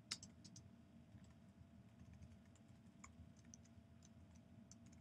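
Faint typing on a computer keyboard: a handful of scattered, irregularly spaced keystrokes.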